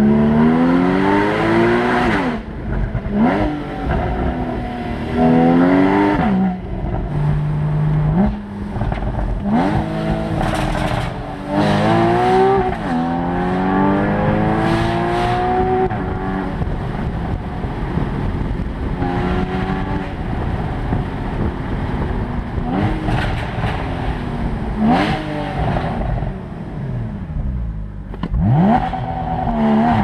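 Porsche Boxster GTS (981) 3.4-litre flat-six with its 7-speed PDK, accelerating through the gears. The engine note climbs again and again, then drops sharply at each gear change, with a few quick rev rises in between.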